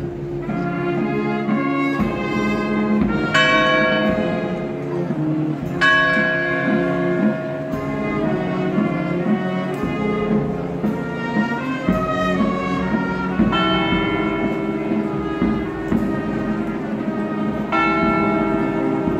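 Cathedral church bells tolling, with a heavy strike every few seconds left ringing, the slow mourning toll of Good Friday. A brass band plays underneath.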